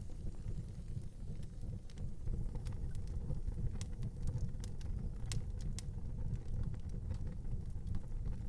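Wood fire burning in an outdoor fireplace: a steady low rumble of the flames with scattered sharp crackles and pops, a few louder ones in the middle.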